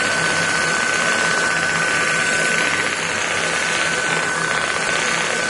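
ASMI (Advanced Spinal Mobilisation Instrument) handheld mobilisation head running against a patient's back: a steady mechanical buzz with a constant high-pitched whine.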